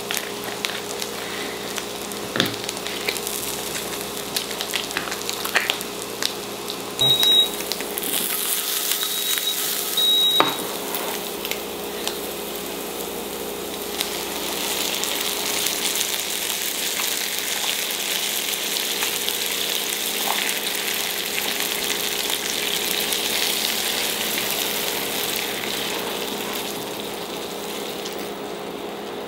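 SPAM sticks and shimeji mushrooms sizzling in a frying pan on an induction hob; carbonara sauce is poured in and stirred, and the sizzle grows louder in the second half. A few clicks and short high beeps come in the first half.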